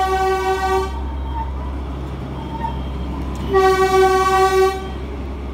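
Darjeeling Himalayan Railway toy train sounding its horn: a held blast that stops about a second in, then a second blast of just over a second a little past the middle. A steady low rumble of the train running lies underneath.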